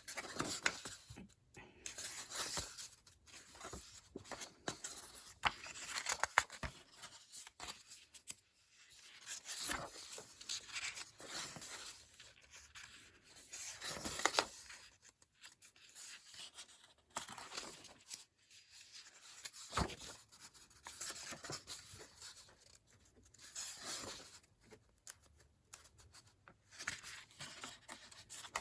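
Pages of a paperback coloring book being turned one after another: a papery swish and rustle every few seconds.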